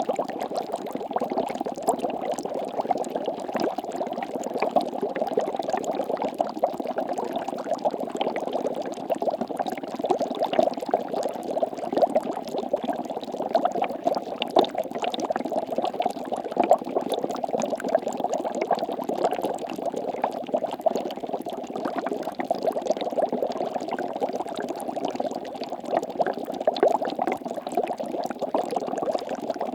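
Water bubbling continuously: a dense, even stream of small bubbles popping.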